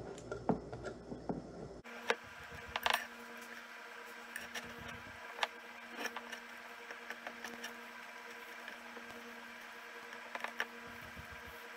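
Knife clicking and tapping on a cutting board in scattered, irregular strokes as raw turkey breast is trimmed of sinew, over a faint steady hum.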